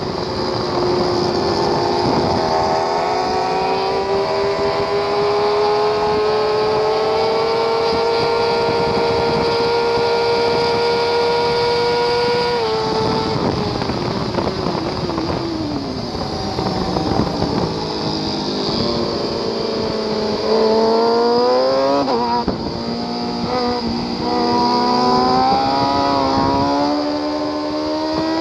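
Onboard sound of a Kawasaki ZX-6R's inline-four running at high revs: the pitch climbs slowly through a long pull, then drops sharply about 12 seconds in and falls away over several seconds as the bike slows for a corner. It climbs steeply again on acceleration, with a gear change near 22 seconds, and wind rushes over the fairing throughout.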